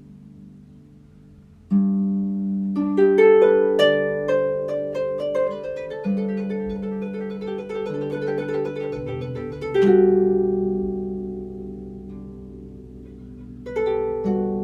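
Harp music: plucked notes and chords left to ring, with a quick run of notes in the middle and a strong chord near the end.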